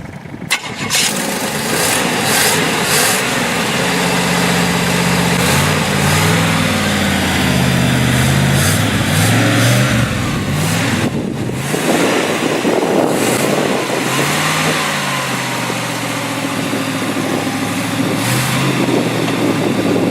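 The stalled, water-soaked jeep's engine is restarted and revved repeatedly, its pitch rising and falling, with a brief drop about eleven seconds in.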